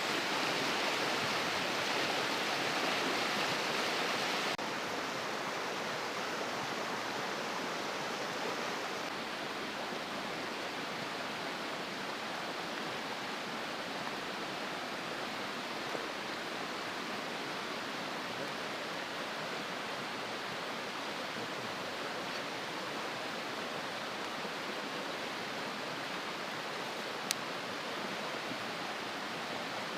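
Steady rushing of running water, somewhat louder for the first few seconds before settling slightly lower, with one sharp tick near the end.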